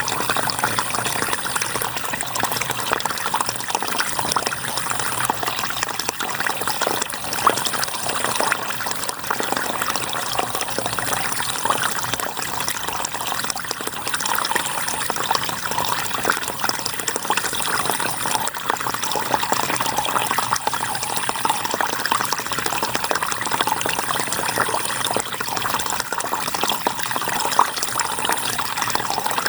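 River water flowing and babbling steadily over stones, a dense rushing splash with many small gurgles. A faint high-pitched whine comes and goes every few seconds.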